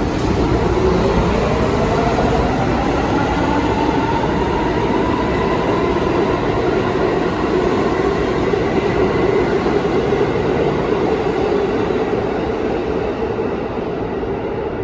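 R179 subway train running on the track, with a whine that rises in pitch over the first few seconds as it gathers speed, then holds steady over the rumble; the sound dies away near the end.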